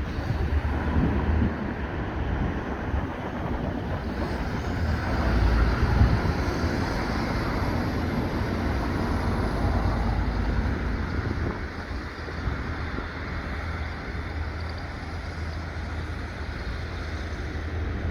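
A train running past with a low rumble that swells and eases, and wind buffeting the microphone.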